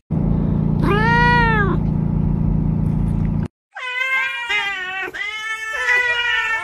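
A black-and-white cat meowing loudly in long, wavering yowls, starting about four seconds in. Before that, over a steady low hum, comes a single squeak that rises and falls in pitch, from a small otter.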